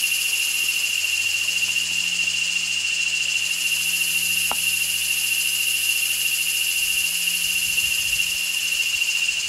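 Steady high-pitched drone of an insect chorus, a constant shrill tone with a hiss above it that thins briefly about two seconds in, with a single click midway.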